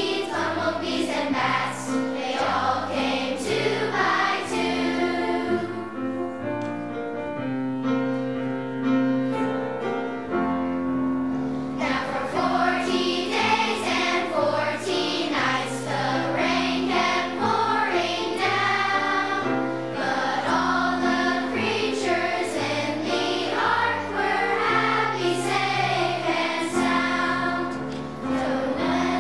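Children's choir singing a song with piano accompaniment.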